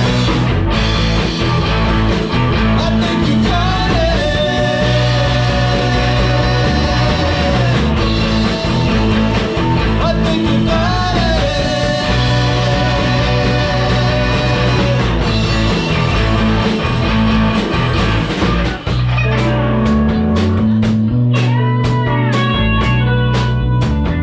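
Live blues-rock band playing: guitar with bent notes over a steady bass line and drums, with the texture thinning to a sparser groove near the end.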